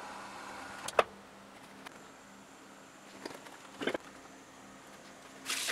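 Quiet room noise with a faint steady hum, broken by a few sharp clicks: the loudest comes about a second in, with smaller ones a couple of seconds later. A short hiss follows near the end.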